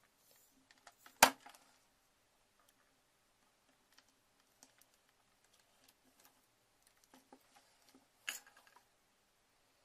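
Light clicks and knocks of a charger cable and plastic power adapter being handled on a cutting mat, with one sharp knock about a second in and a few more near the end.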